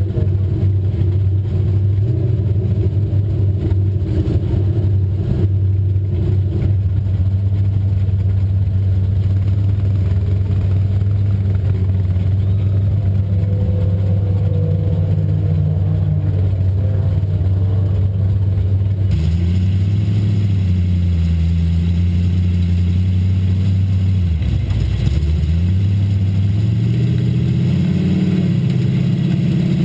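Dirt-track race car's engine heard from inside the cockpit, idling steadily. About two-thirds of the way in it is given throttle, its note rising and wavering, dipping briefly and then climbing again as the car pulls away.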